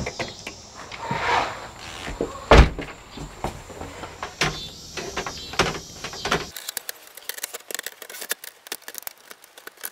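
Storm door being opened and closed: a squeak, scattered knocks and latch clicks, with the loudest knock about two and a half seconds in. After that comes a run of quick light clicks and rattles.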